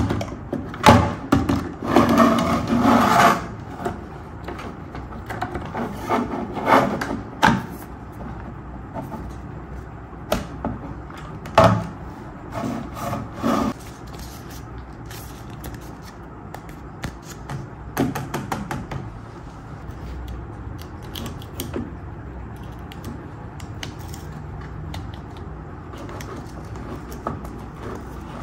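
Plastic Paw Patrol toy playset parts being handled and pressed together on a tabletop, with a run of sharp clicks and knocks in the first half. After that comes quieter rubbing and handling of the pieces, with a few small clicks.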